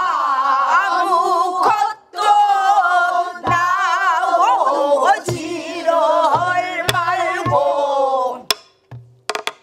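A pansori teacher and her students singing together in the slow jinyangjo rhythm, long held notes sliding and shaking with wide vibrato, with a short break about two seconds in. A buk barrel drum, struck with a stick, marks the beat with a few spaced strokes.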